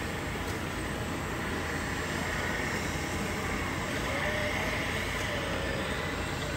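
Steady rumbling noise of running RC model machinery, with a faint whine that rises and falls a few times in the second half as the RC dump truck's electric drive speeds up and slows down.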